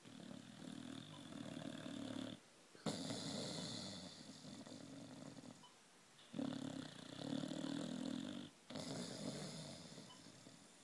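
Boxer dog snoring in slow, even breaths: four long snores, each about two to three seconds, with short pauses between.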